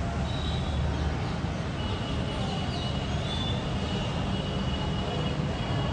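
Outdoor background noise: a steady low rumble, with faint high bird chirps and whistles above it.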